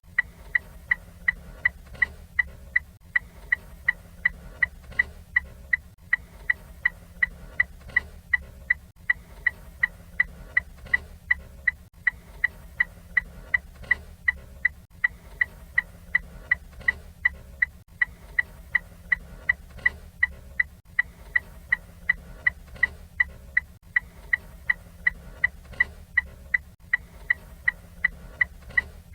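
Ford Fiesta turn signal indicator ticking steadily, a sharp clicking tick about two to three times a second, over a faint low hum.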